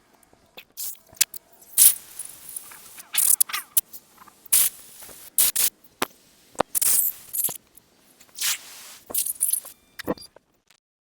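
Short, irregular blasts of compressed air from an air blow gun, hissing against the chainsaw's engine parts to blow off dirt and debris.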